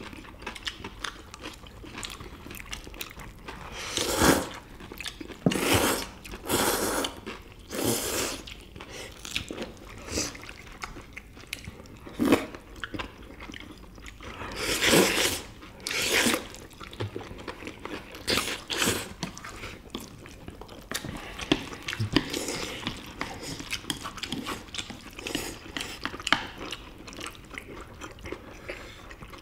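Several people slurping noodles and chewing, with loud slurps of jjajangmyeon and jjamppong noodles again and again between quieter chewing and light clicks.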